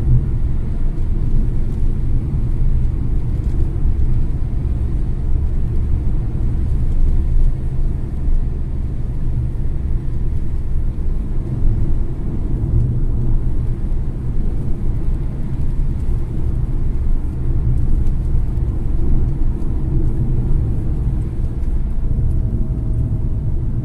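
Steady low rumble of a car driving along an open road: engine and tyre noise at cruising speed.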